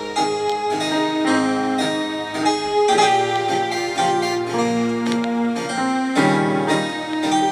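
Instrumental break in a music hall song: a piano-like keyboard accompaniment plays the melody and chords with no singing.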